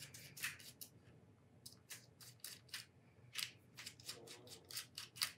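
Small screwdriver ticking and scraping against tiny screws in a diecast metal engine-model housing as they are backed out: a quiet run of irregular small metallic clicks.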